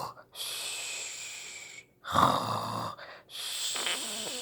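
A person imitating loud snoring: a rasping snore drawn in, then a long hissing breath out, twice over.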